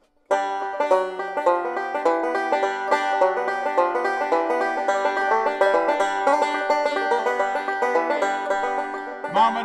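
Five-string banjo picked through a tune, starting suddenly about a third of a second in; near the end a man starts singing over it.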